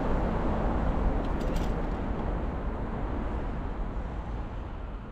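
Steady rushing wind and road noise on the microphone while riding, heaviest in the low end, slowly fading toward the end.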